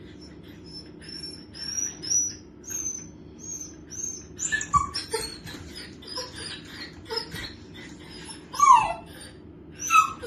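Long-haired dachshund whining in a long run of short, high-pitched squeaks, with a few louder falling yelps, the loudest near the end.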